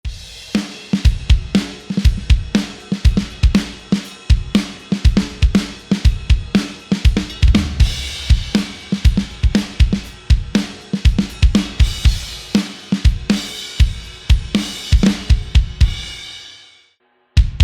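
Sampled rock drum kit from the EZdrummer 3 Pop Punk EZX library playing a steady groove of kick, snare, hi-hat and cymbals. The beat stops about 16 seconds in with cymbals ringing out, and a new pattern starts just before the end.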